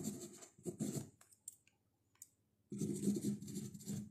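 Felt-tip marker writing on the pebbled faux-leather lid of a case: short scratchy pen strokes at first and again for the last second and a half, with a few faint clicks in the pause between.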